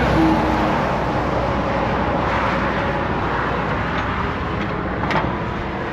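Highway traffic rushing past close by, loudest at the start and easing off. A single sharp click comes about five seconds in.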